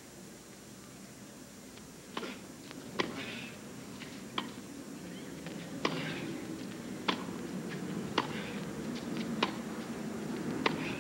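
A tennis rally on a hard court: sharp racquet strikes and ball bounces about once a second, starting about two seconds in, over a crowd murmur that slowly grows louder.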